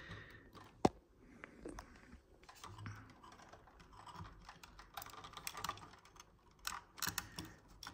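Faint, scattered light clicks and rustling from hands handling a circuit board and its wiring, with one sharper click about a second in and a few small clusters of clicks later on.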